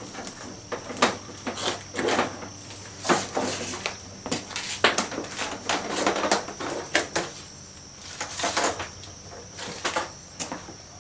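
Irregular knocks, clunks and rattles of objects being handled and set down, with shuffling footsteps, over a faint steady electrical hum.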